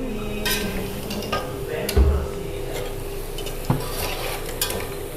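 A metal spatula stirring in a wok, with scattered scrapes and taps against the pan over a light sizzle of cauliflower frying. There is a dull thump about two seconds in.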